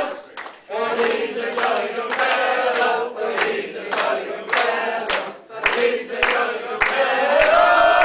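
A roomful of people singing together in long held notes while clapping in time, about two claps a second.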